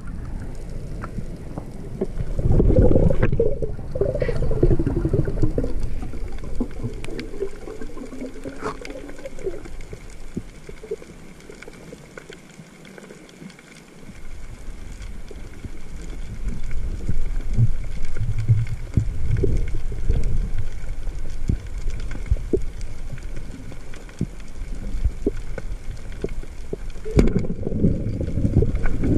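Water sloshing and gurgling around a camera in the sea, a low rumble dotted with small clicks, with a wavering low tone in the first several seconds and a quieter stretch about halfway through.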